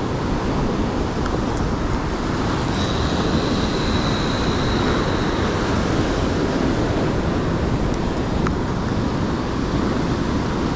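Rough sea surf breaking and washing over rocks, a steady rushing with wind buffeting the microphone.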